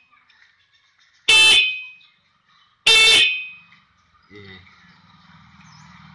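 Hero Splendor motorcycle's electric disc horn sounding two short honks about a second and a half apart while its adjusting screw is being turned, showing that the horn, which had stopped sounding, now works at this setting. From about four seconds in a much fainter low buzz follows.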